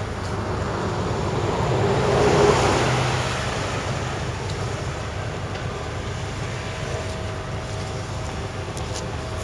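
Outdoor street traffic noise, with one vehicle passing close by: it swells to a peak about two and a half seconds in and fades away, leaving a steady traffic hum.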